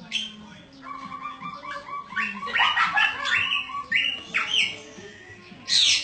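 Caged kipasan semak fantail chirping: a quick run of short, sharp, rising notes, loudest in the middle, followed by a short loud noisy burst near the end.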